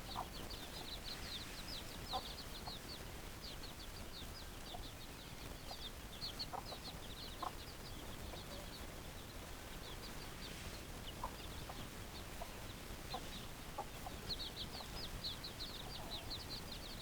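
Chickens: many rapid, high peeps in clusters, with scattered short clucks.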